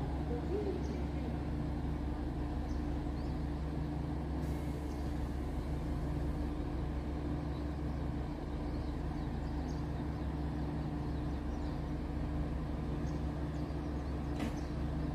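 Steady low hum of a standing JR Kyushu 817 series electric train. A faint hiss of air comes about five seconds in, and a single click near the end.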